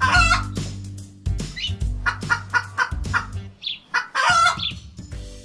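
Recorded farmyard poultry calls in quick runs of short calls, the busiest burst about four seconds in, over light background music.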